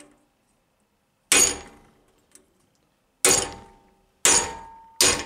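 Four hammer blows on a half-inch square steel mandrel, driving it down between vise jaws to cold-bend a thin steel strip around it into a U. Each blow is a sharp metal strike that rings briefly and dies away. The first comes about a second in, and the rest follow faster toward the end.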